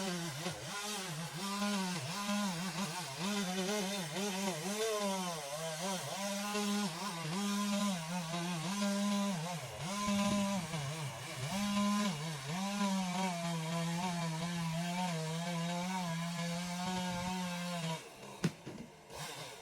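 Chainsaw cutting wood, its engine note dipping and recovering again and again as the chain bites, then stopping near the end. A single sharp knock comes just after it stops.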